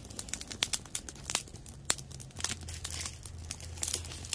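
Freshly lit split-wood kindling fire crackling, with irregular sharp pops and snaps.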